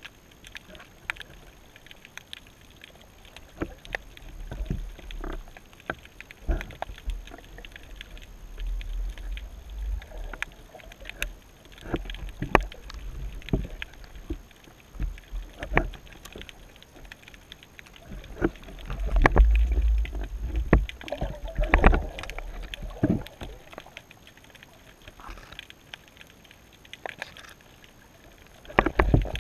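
Underwater sound picked up through a camera housing in shallow surf: low rumbling surges of moving water, loudest about twenty seconds in, with many scattered sharp clicks and knocks.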